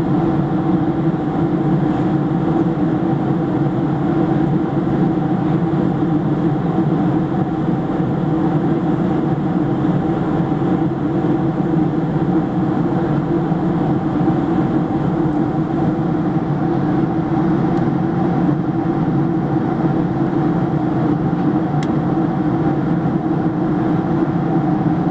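Steady cabin drone of a Boeing 737-700 in flight, heard at a window seat over the wing: its CFM56 turbofan engines and airflow make a loud, even rush with a constant low hum.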